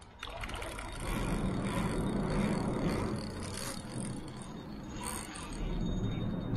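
Traffic passing over the road bridge overhead, heard from underneath as a steady rumbling rush that swells twice.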